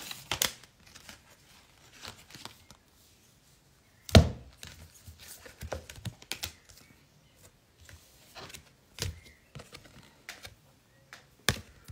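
Oracle cards being shuffled and handled by hand: a quick run of card flicks at the start, then scattered soft slaps and taps, the loudest a thump about four seconds in.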